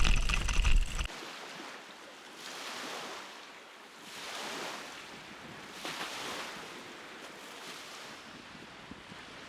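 Small waves lapping on a lakeshore, rising and falling in gentle swells about every one and a half seconds. A loud low rumble, like wind on the microphone, fills the first second and cuts off suddenly.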